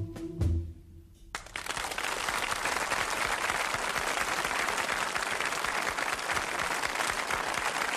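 A military march ends on its last low drum beats and a held note, and after a short pause an audience breaks into steady applause about a second and a half in.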